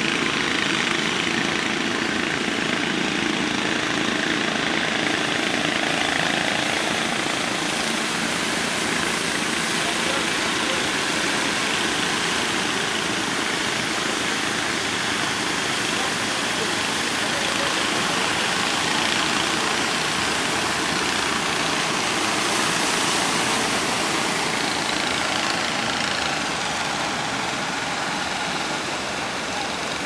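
Heavy surf breaking and rushing steadily, with a fishing boat's engine running beneath it. The level drops a little near the end.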